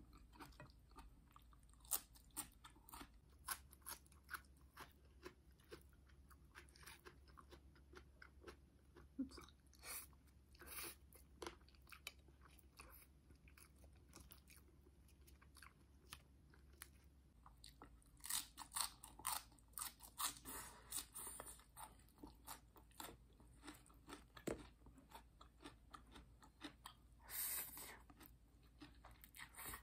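Quiet, close-miked eating sounds: chewing and crunching with many short wet clicks. Near the end, a longer slurp as instant noodles are sucked into the mouth.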